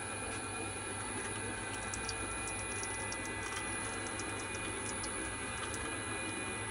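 Small electric cold-press screw oil expeller running steadily: a low motor hum with fine steady whining tones, and faint irregular ticks scattered through the middle as the seeds are pressed.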